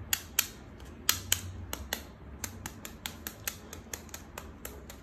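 Two grilled eggs in their shells tapped against each other, giving a quick uneven run of sharp eggshell clicks, about two to three a second, as he works to crack the shells.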